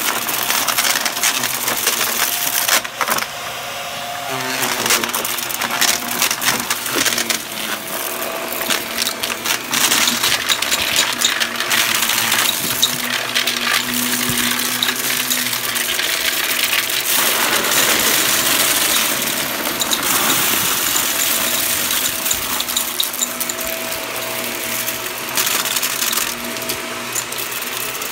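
Shark upright vacuum running on carpet and sucking up small hard debris: a dense crackling rattle of bits being crunched and pulled up through the nozzle, over the steady hum and whine of the motor.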